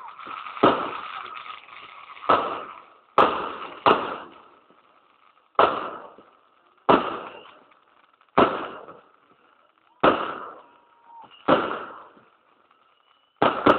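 Aerial fireworks shells bursting in a series of about ten loud bangs, roughly one every second or so, each one trailing off before the next.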